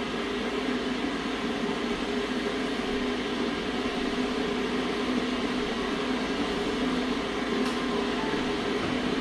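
Steady hum of a running fan motor, with a few constant tones in it. A faint tick comes near the end.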